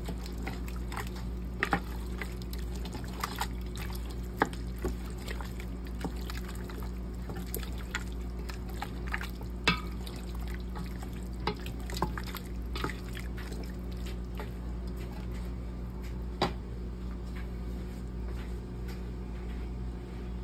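Beef chunks simmering wetly in their juices in a stainless steel pot, with irregular sharp pops and clicks as a wooden spoon stirs and knocks against the pot, over a steady low hum.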